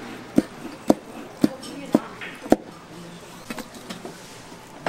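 Five sharp, evenly spaced knocks, about two a second, that stop about two and a half seconds in, over steady background noise.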